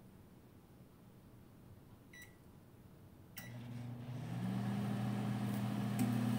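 GE over-the-range microwave oven: two short keypad beeps about two and three and a half seconds in. The oven then starts up on a defrost setting, a steady low hum that builds up over about a second.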